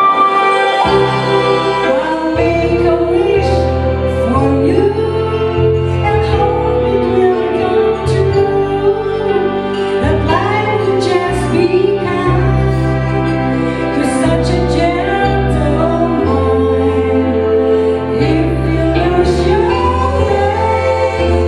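A woman singing into a microphone over a backing track of keyboard chords and bass; the bass comes in about a second in.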